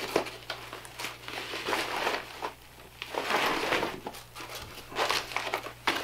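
Nylon tactical vest pouches rustling and crinkling as they are handled, with an AR magazine fitted in a pouch. The rustles come in several short, uneven bursts with quiet gaps between them.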